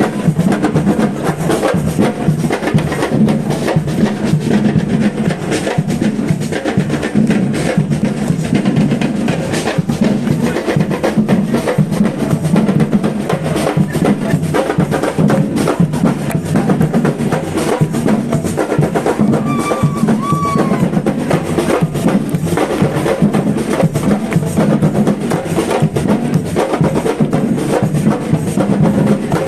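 Live percussion music: drums and wood-block-like strikes playing a fast, dense, steady rhythm. A brief high gliding tone sounds about two-thirds of the way through.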